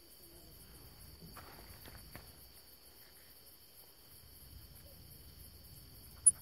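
Night insects, crickets, chirping steadily at a high pitch, with a brief rustle and click about a second and a half in. A single sharp high chirp or click near the end is the loudest sound.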